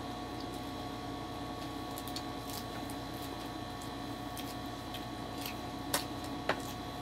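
Light clicks and taps of plates and cutlery as people eat by hand at a table, with two sharper clicks near the end, over a steady background hum.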